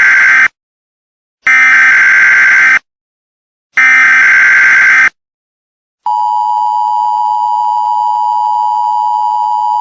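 Emergency Alert System header: the tail of one burst of harsh digital data screech and two more bursts about a second apart, the SAME code sent three times. About six seconds in, the steady two-tone EAS attention signal begins and holds. The data bursts are louder than the tone.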